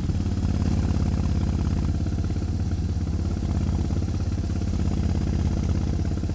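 2003 Suzuki Intruder 1400's V-twin with Vance & Hines Classic II exhaust pipes, running steadily on the move with a low, even exhaust pulse.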